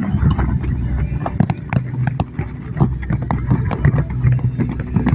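Fireworks going off in rapid, irregular succession: many sharp bangs and crackles over a constant low rumble of the display.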